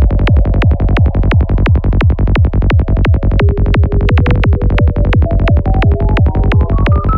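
Electronic dance music with a fast, steady drum-machine beat. A synth line climbs step by step in pitch over the second half.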